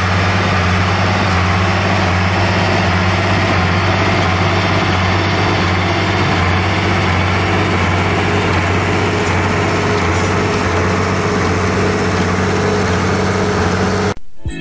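Old Farmall tractor engine running steadily with an even low hum, cutting off suddenly near the end.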